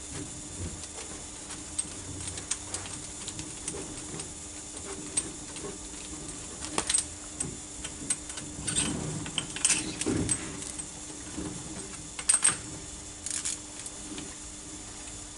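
Irregular metallic clicks and clinks of hand tools and fittings being handled, as the compression gauge is moved from one cylinder to the next on a Ford 2.2 Duratorq diesel engine. The clatter is busiest in the second half, with the loudest clinks a few seconds before the end, over a faint steady hum.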